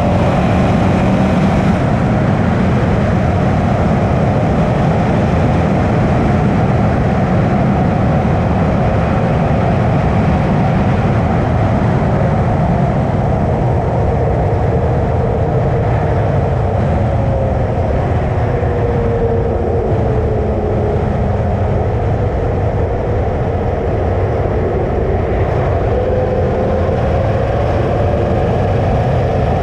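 Suzuki V-Strom 650's V-twin engine running steadily while riding, its pitch drifting gently up and down, under a steady rush of wind and road noise.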